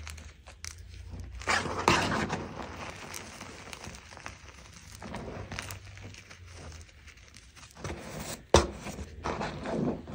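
Bare hands squeezing and kneading crumbled, dyed gym chalk in a plastic tub: soft crunching in uneven bursts, with one sharp click about two-thirds of the way through.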